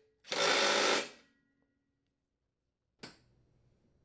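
Cordless impact driver tightening the nut on a mower deck's blade spindle pulley in one burst of about a second, then a short fading hum as it spins down. A single knock about three seconds in.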